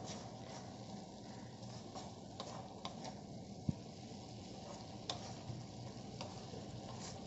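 Chopped spring onion bhaji being stirred in a black kadhai with a wooden spatula: a soft, steady sizzle with occasional scrapes and taps of the spatula against the pan, and one louder knock a little past halfway.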